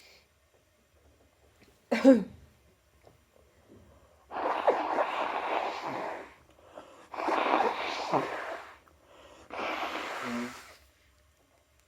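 A person with a cold sneezes once, sharply, about two seconds in. Three long, noisy exhalations follow, each about a second and a half.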